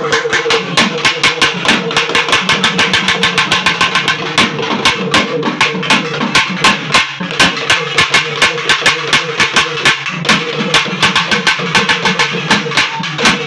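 Ritual drums playing a fast, even beat of about six strokes a second over a steady droning tone.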